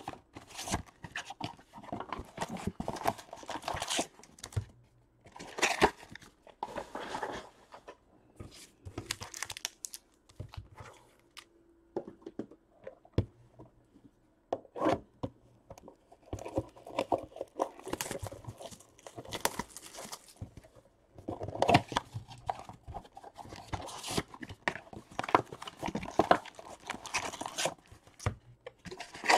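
Wrappers of 2020 Bowman baseball card packs being torn open and crinkled, in irregular spells with short pauses between them.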